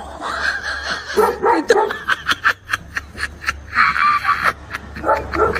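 A large dog barking in short bursts, with a person laughing over it.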